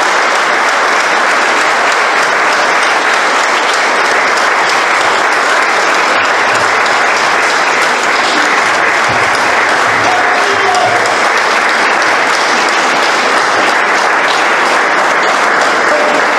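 Audience applauding steadily for a long stretch, the clapping of many hands holding at an even level throughout.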